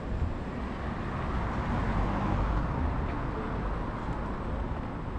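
Street traffic noise with a low rumble, and a passing vehicle swelling and fading in the middle.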